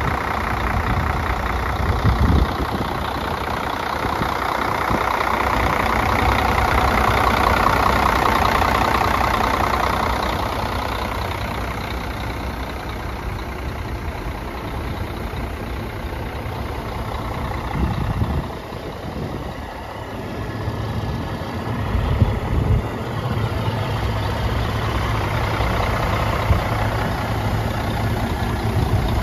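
2005 Freightliner Columbia's diesel engine idling steadily, a continuous low rumble that swells and fades a little in level. There are a few short low thumps.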